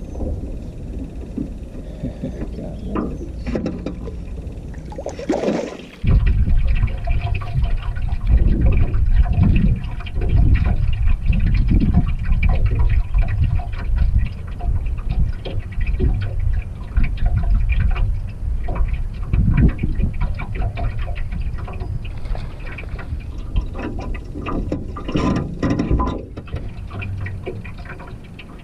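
Wind buffeting the camera microphone as an uneven low rumble that gets much louder about six seconds in, with water lapping and sloshing against the boat's hull.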